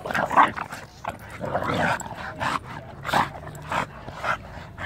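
A Staffordshire bull terrier and an English bulldog huffing hard in short, irregular bursts while both grip and tug one toy.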